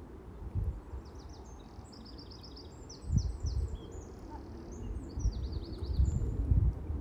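A small songbird singing several quick runs of high, falling notes, over a low rumbling noise that grows louder from about three seconds in.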